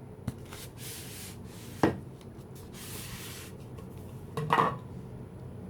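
Packaging of a poster set being handled and opened: soft rubbing and rustling, with a sharp tap about two seconds in and a louder, brief rustle about four and a half seconds in.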